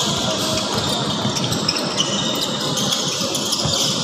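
Sounds of basketball play in a large gym: a ball bouncing and shoes scuffing and squeaking on the court, with short high squeaks scattered through, over a steady hall murmur.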